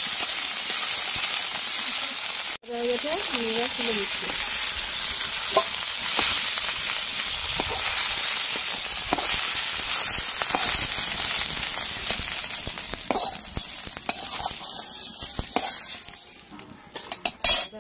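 Food frying in hot oil in a pan, a steady sizzle with the odd clink of stirring. The sizzle cuts out for an instant about two and a half seconds in. It dies down near the end, where a few sharp clatters of utensils follow.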